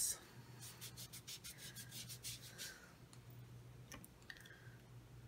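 Faint rubbing and scratching of hands handling small objects on a table, with a run of quick light ticks over the first few seconds and a few single ticks later.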